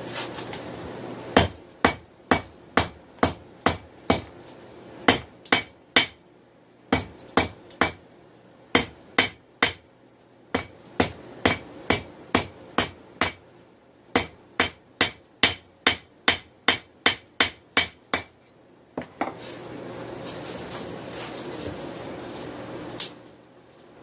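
Hand hammer striking 416 stainless steel on an anvil, drawing the bar down into a taper: runs of sharp blows, about two to three a second, with short pauses between runs. Near the end the hammering stops and a steady rushing noise takes over.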